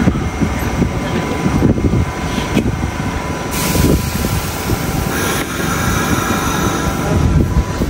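Rumbling noise of an R46 subway train at a station platform, with a steady tone running under it and a short hiss about three and a half seconds in.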